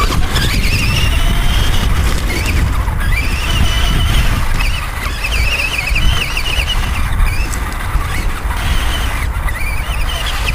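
Electric motor and drivetrain of a Traxxas Stampede 4x4 RC monster truck whining, the pitch rising and falling with the throttle, over a heavy low rumble of wind on the microphone.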